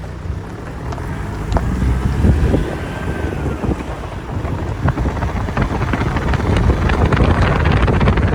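Wind buffeting the microphone: a loud, low rumble with crackling that grows louder toward the end.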